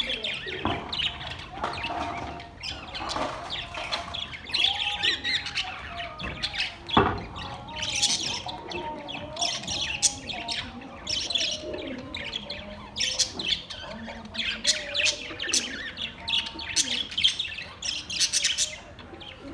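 Budgerigars chirping and chattering continuously in quick short chirps, with a single sharp knock about seven seconds in.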